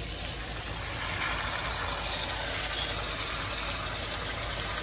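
Browned beef and peppers sizzling in a hot frying pan as diced tomatoes are tipped in from a plate. The steady sizzle grows a little louder about a second in.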